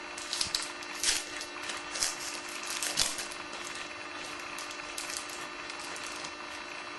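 Football trading cards being handled and slid across one another: a run of dry rustling and scraping strokes, loudest in the first three seconds and dying away a little after six seconds, over a steady low electrical hum.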